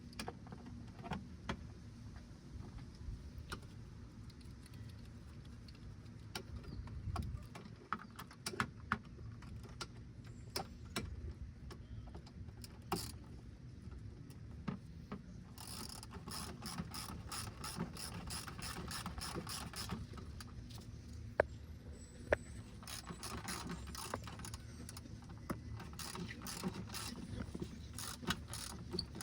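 Ratchet wrench clicking in runs as bolts are tightened down, with scattered single clicks and knocks between the runs; the longest runs come in the second half.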